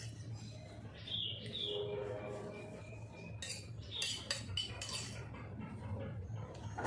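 Cutlery clinking and scraping against a plate while eating, with a cluster of sharp clinks about halfway through.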